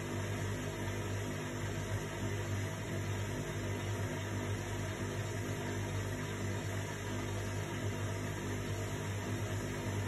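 Indesit front-loading washing machine running a cool wash, its drum turning the laundry with a steady motor hum.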